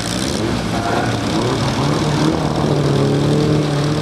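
Vintage racing car's engine running hard as it drives past on a hillclimb course. Its pitch climbs about halfway through, then holds steady as the car accelerates.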